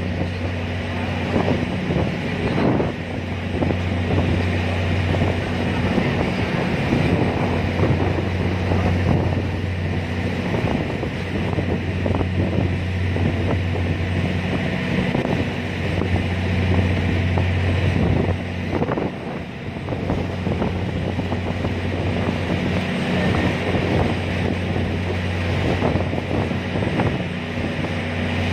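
A ferry's engine droning steadily in a low hum, with strong wind rushing and buffeting across the microphone in gusts.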